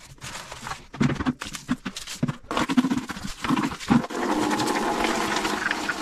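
A brush scrubbing in a tiled bathroom in short, irregular strokes, then about four seconds in water starts running steadily.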